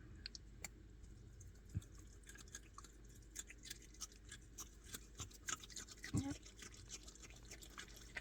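A possum eating: rapid, irregular wet clicking and smacking of its chewing, faint and close, with a couple of soft low thumps.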